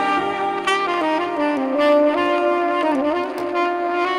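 Tenor saxophone playing slow, held notes that slide and bend between pitches, with sustained lower notes sounding beneath it.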